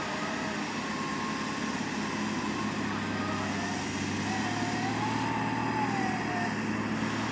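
Off-road 4x4's engine running steadily, with a thin whine that wavers slowly up and down in pitch.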